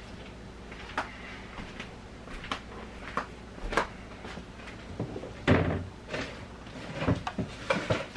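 Scattered knocks and clicks from someone moving about and searching, like cupboards or drawers being handled, with a louder thump about five and a half seconds in and a few more knocks near the end.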